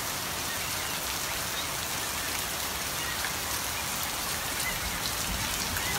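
Steady rain falling, with a few faint short high squeaks.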